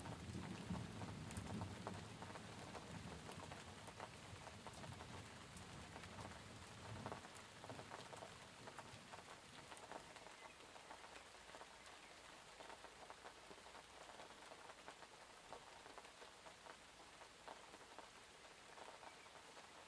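Light rain falling, with many separate drops pattering close by. A low rumble of thunder dies away over the first several seconds.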